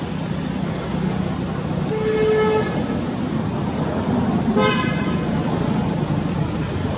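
A vehicle horn honks once, a steady tone lasting under a second about two seconds in, then gives a much shorter honk about two seconds later, over steady traffic noise.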